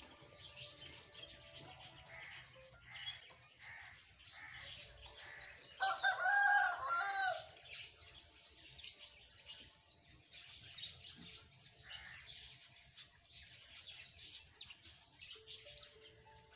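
Small birds chirping over and over, with a rooster crowing once, loudly, about six seconds in.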